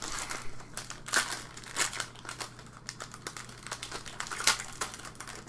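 Plastic trading-card pack wrappers crinkling as hockey card packs are opened and handled, a run of irregular small crackles, over a steady low hum.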